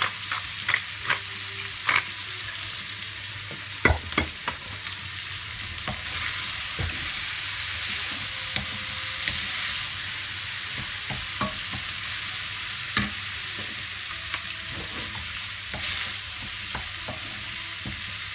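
Diced smoked pancetta with garlic and onion sizzling steadily in a metal frying pan, stirred with a wooden spatula. There are a few sharp clicks and knocks in the first five seconds.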